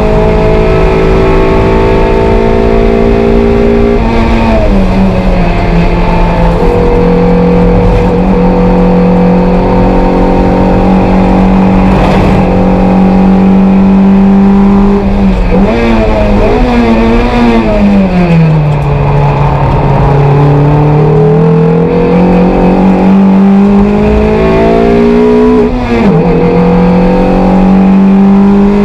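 Toyota MR2 race car's mid-mounted engine heard from inside the cabin, running hard at high revs. The note steps down about four seconds in and falls away from around sixteen to nineteen seconds. It then climbs steadily before stepping down again near twenty-six seconds.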